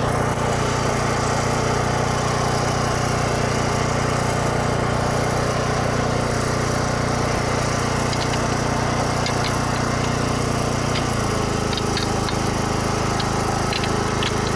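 Small portable petrol generator engine running steadily, its note stepping slightly lower about eleven seconds in. A few faint light ticks come through in the second half.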